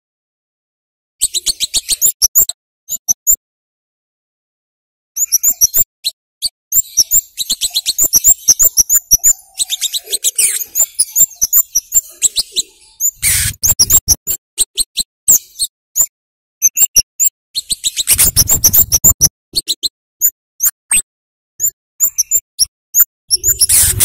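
Scarlet-headed flowerpecker (kemade) calling in rapid runs of sharp, high 'cit' chips, broken by short silent gaps. There are a few brief rushing noise bursts, one about halfway through, one a few seconds later and one near the end.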